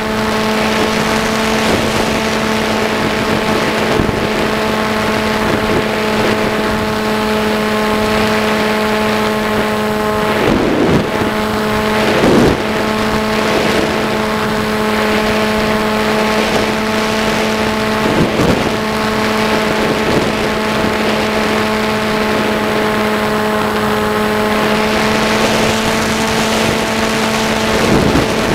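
Onboard sound of an FPV model aircraft's motor and propeller: a steady hum at a nearly constant pitch. A few brief rushes of wind noise hit the onboard microphone.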